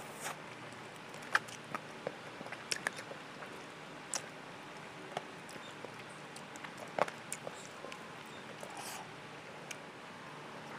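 Close-miked eating sounds of spicy chicken feet being sucked and gnawed off the bone: scattered wet lip smacks and clicks, the sharpest about a second in and again near the middle, over a steady low hiss.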